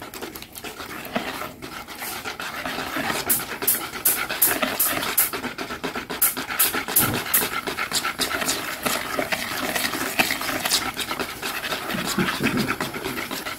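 Wire whisk beating thick, wet pancake batter in a bowl: rapid, steady strokes that squelch through the batter, with sharp ticks where the wires hit the bowl's side.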